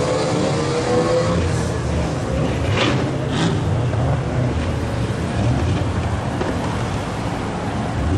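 Car engine accelerating, its pitch rising through the first second, then a steady low exhaust rumble. Two short, sharp bursts of noise come about three seconds in.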